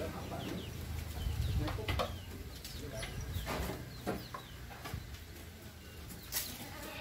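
Birds chirping in short calls, with a few sharp knocks over a steady low rumble.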